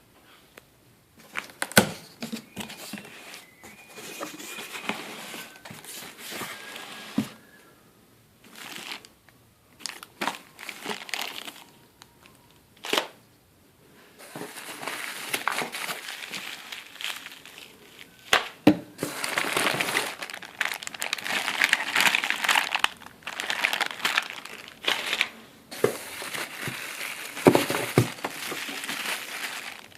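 Packaging being handled and unwrapped: stretches of crinkling and rustling, loudest in the second half, with several sharp knocks in between.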